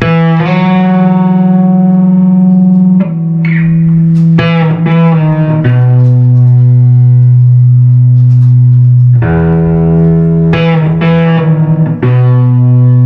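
Electric guitar playing a slow melody of long held notes, each sustained for two to three seconds, with short quick runs of notes between them about four and eleven seconds in.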